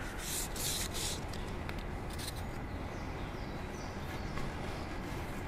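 A few light hand-sanding strokes with fine sandpaper on the lacquered wooden seat, heard as short hisses in roughly the first second, over a steady low background noise.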